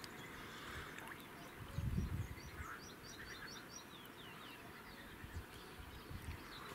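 A small songbird singing a quick run of short, high, falling chirps about three seconds in, over faint steady outdoor background noise. A brief low thump comes just before the song.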